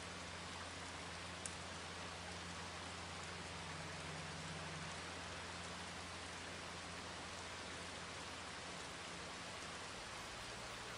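Steady, even rain-like hiss with a faint low hum beneath it, and one faint click about a second and a half in.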